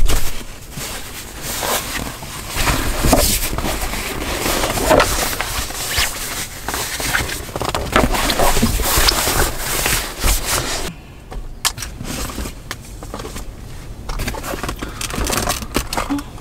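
Camping gear being handled and shifted around in a vehicle's cargo area: rustling, scraping and knocks as a flat panel is lifted and moved. The handling is busiest for about the first eleven seconds, then thins to quieter scattered clicks.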